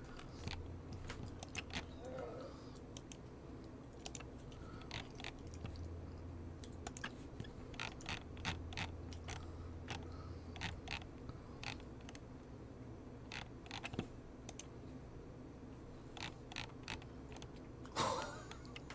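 Computer keyboard being typed on: scattered, irregular keystrokes and clicks with uneven gaps between them. A short breathy rush comes near the end.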